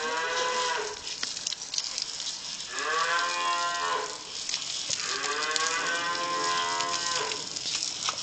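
Cattle mooing: three long, drawn-out moos, the last the longest, over the hiss of a garden hose spraying water.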